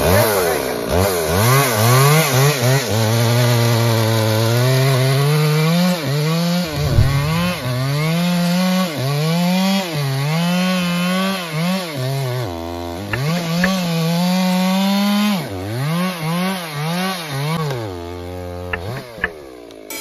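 Stihl two-stroke chainsaw cutting into a tree trunk, loud throughout. Its engine pitch keeps dropping as the chain bogs in the wood and rising again as it frees up, with quicker dips near the end.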